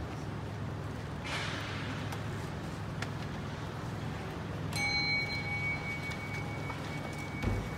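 A metal bell struck once about five seconds in, its clear, high ringing tone fading slowly over about three seconds. It sounds over a steady low hum, with a short hiss early on and a low thump just before the end.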